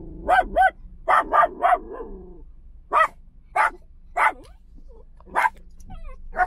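Miniature dachshund barking: about ten short, sharp barks, a quick run of them in the first two seconds, then single barks spaced about half a second to a second apart.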